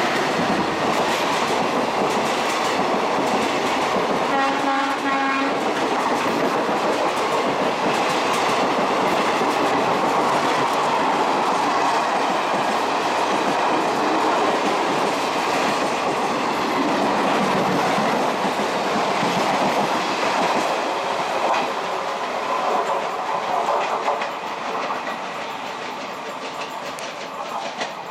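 Passenger express coaches passing at speed close by, a loud steady rush of wheel and rail noise. About four and a half seconds in, a train horn sounds once for about a second. The noise falls away over the last few seconds as the end of the train goes by.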